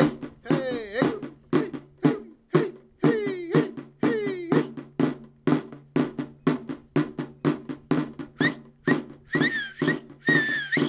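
A drum beaten in a quick, steady rhythm over a low steady tone, some of the early strokes sliding down in pitch. From about two-thirds of the way through, high whistled notes that dip in pitch join in.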